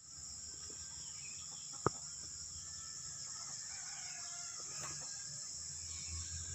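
Steady high-pitched chirring of insects, with faint scattered bird calls, typical of chickens, and a single sharp click about two seconds in.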